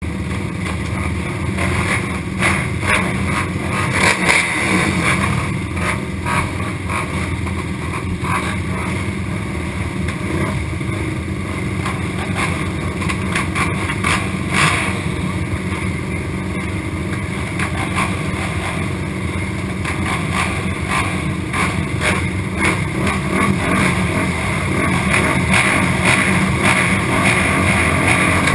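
Honda TRX450R race quads' single-cylinder four-stroke engines running at the starting gate, the rider's own engine closest, with other quads running on either side. The engine noise grows a little louder near the end.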